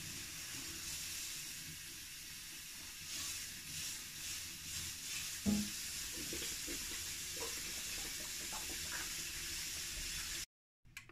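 Cold water running at a kitchen tap into a measuring jug, then poured from the jug into a stainless steel pot, a steady splashing hiss with a light knock about halfway through. The sound cuts off suddenly near the end.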